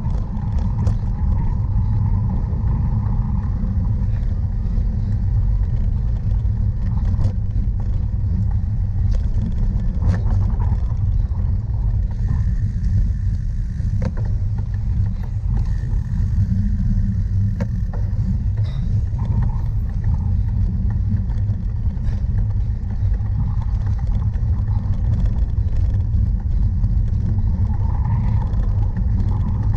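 Steady low rumble of wind and riding noise on a camera carried through a cyclocross race, with scattered clicks and rattles from the bike over rough ground.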